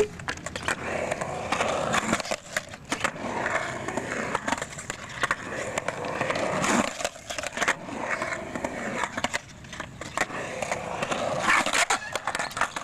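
Skateboard wheels rolling on a concrete bowl, with repeated sharp clacks and knocks of the board and trucks hitting the concrete.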